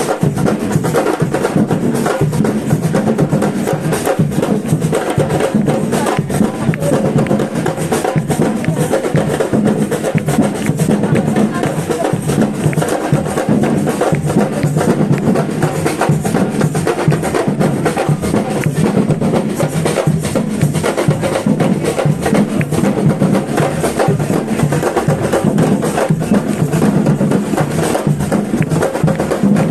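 Live music driven by a percussion group playing a steady, busy rhythm on drums, with sharp wood-block-like strikes throughout.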